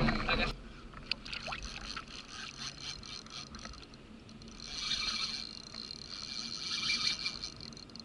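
A spinning reel is cranked in two spells while a hooked fish pulls the rod hard over, its gears giving a steady whine over the slosh of the sea against the kayak.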